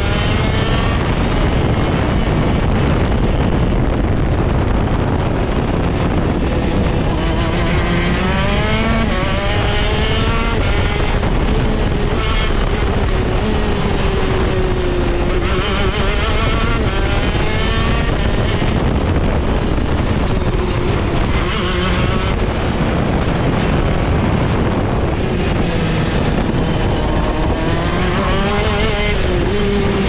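Two-stroke shifter kart engine running hard on track. Its pitch climbs through the gears with short breaks at each shift, then falls away, over and over. This is the rising and falling of a kart accelerating out of corners and slowing into them.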